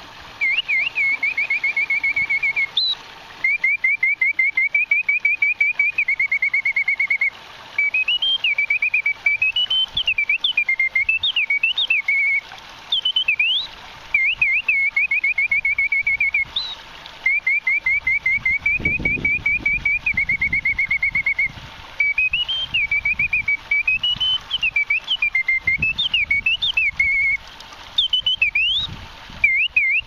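Clockwork singing bird automaton whistling its mechanical bird song: bellows-blown whistle notes in rapid trills of repeated chirps and quick rising and falling glides, in phrases broken by short pauses every few seconds.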